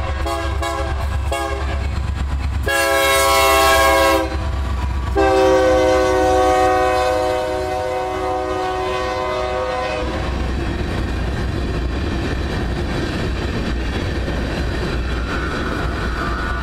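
Union Pacific freight locomotive's air horn sounding, with choppy short blasts at first, then a long blast, then another long blast that stops about ten seconds in. After it the steady rumble and clickety-clack of the tank cars rolling past close by.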